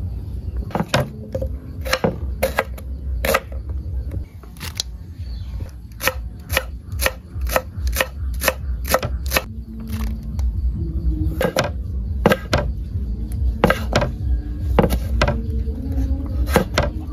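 Kitchen knife chopping green onions and red chili peppers on a wooden cutting board: a run of sharp knocks on the board, at about three a second through the middle.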